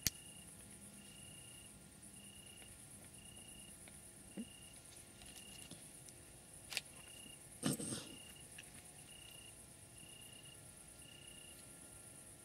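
Faint chirping insects at night: a high, fast-pulsing trill with a lower chirp repeating about every three-quarters of a second. A couple of faint clicks and a short knock about eight seconds in.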